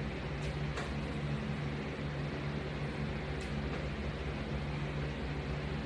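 Steady low mechanical hum of room background, like an air conditioner or fan running, with a few faint light clicks.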